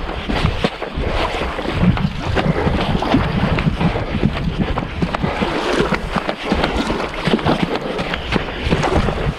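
Wind buffeting the microphone in gusts, over the wash of lake water.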